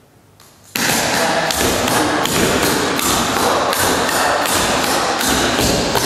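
Clogging shoes' metal taps striking a wooden floor in a rapid, continuous run of steps, starting suddenly about a second in.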